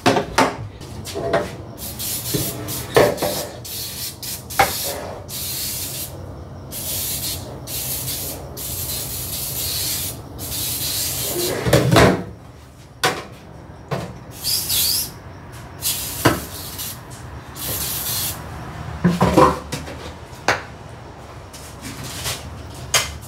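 Aerosol can of Easy-Off BBQ grill cleaner spraying in long hisses with short breaks onto a greasy steel grease tray, with knocks and clanks of the tray and can in a stainless-steel sink; the loudest clanks come about halfway through and again later on.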